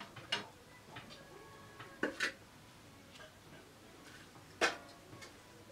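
A few scattered light clinks and taps of a metal ladle against steel plates and a pot while curry is served, the loudest a pair about two seconds in and another past four and a half seconds.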